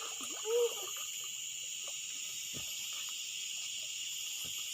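Steady insect chorus: a continuous high drone in several even bands. A couple of faint knocks sound in the second half.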